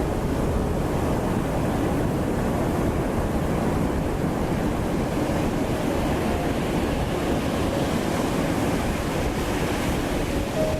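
Ocean surf washing steadily in a continuous rush without distinct single crashes, with some wind noise on the microphone.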